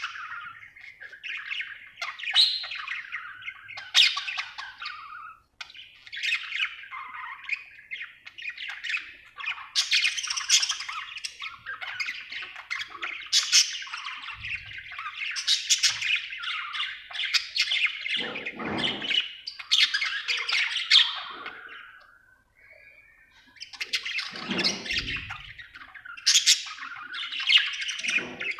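Budgerigar chirping and chattering almost without a break, a fast jumble of high chirps and squawks, with a short pause late on.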